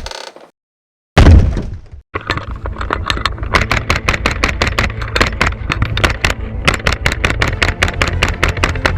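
A loud sudden crash about a second in that dies away over most of a second, followed by music with a fast, steady beat.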